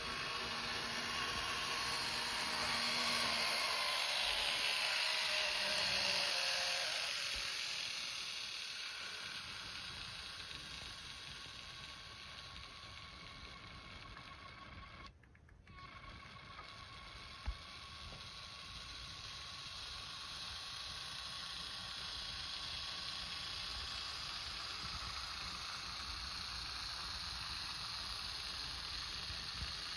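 Märklin Z-scale model train running along its track: a steady mechanical whir with hiss from the tiny motor and wheels on rail, louder for the first several seconds. It drops out briefly about halfway, with a single click a couple of seconds later.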